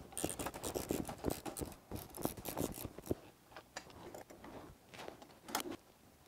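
Metal parts of a Kalamazoo bandsaw's vise being handled while it is unbolted to move it forward: irregular light clicks, clinks and scrapes, busier in the first half and sparser after.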